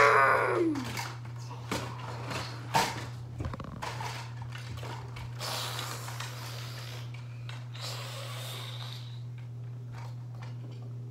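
A child's voice sliding down and trailing off in the first second, then scattered knocks and soft rustling from handling a cushion and costume, over a steady low hum.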